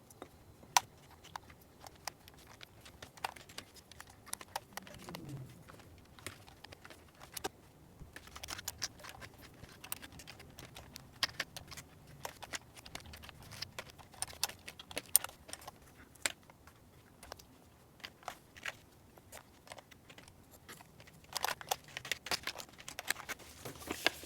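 Plastic keycaps being handled and pressed onto the keyboard's switch stems: irregular sharp clicks and taps, denser in stretches.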